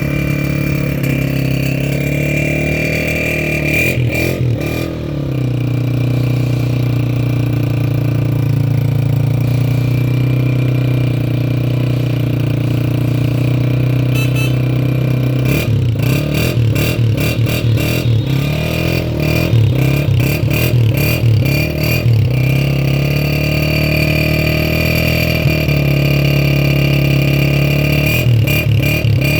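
Honda CG 125's single-cylinder four-stroke engine idling steadily, with a brief throttle blip about four seconds in, a run of quick revs between about sixteen and twenty-two seconds in, and more revs near the end.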